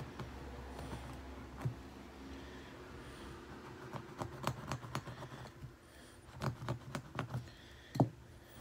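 Irregular runs of small sharp clicks and taps from a razor cutter being worked through cloth, picking up about halfway through, with one louder click near the end.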